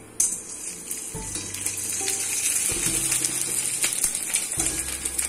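Hot oil sizzling and crackling as a sago-and-potato papad fries, starting suddenly just after the beginning and staying steady. Light ukulele background music plays underneath.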